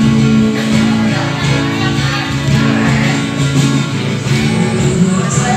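Live band music with guitar and singing, steady throughout.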